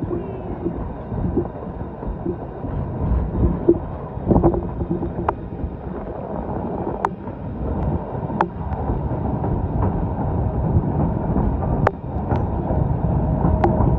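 White Pass & Yukon Route train rolling along the rails, a steady low rumble with wind buffeting the microphone and scattered sharp clicks at irregular intervals.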